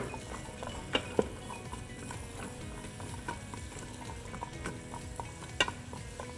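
Diced onion, celery and carrots frying gently in butter and oil in an Instant Pot's stainless steel inner pot on sauté, stirred with a spoon. A soft steady sizzle runs under a few knocks of the spoon against the pot, about a second in and again near the end.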